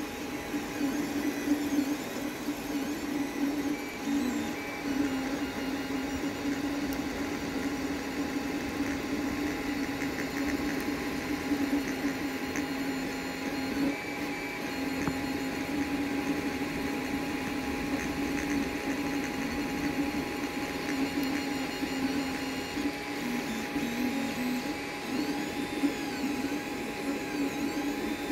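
Creality FDM 3D printer running a print: its stepper motors whine in tones that shift as the print head moves, over a steady hum that runs throughout.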